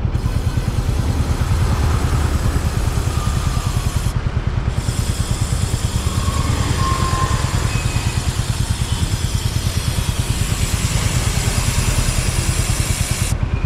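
An aerosol can of chain lube hissing as it is sprayed onto a Royal Enfield Classic 350's drive chain, with a short break a little over four seconds in. Under it, the bike's single-cylinder engine idles steadily with a fast, even pulse.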